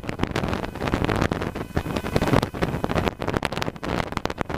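Wind buffeting the microphone in irregular gusts, over the steady drone of a Cessna 150's Continental O-200 engine in cruise flight.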